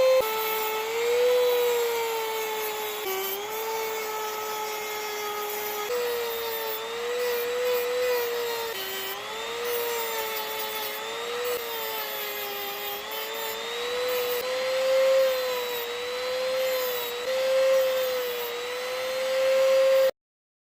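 Small handheld power tool whining as it cuts down an aluminium wheel hex hub, its pitch dipping and recovering repeatedly as it bites into the metal. The sound cuts off abruptly near the end.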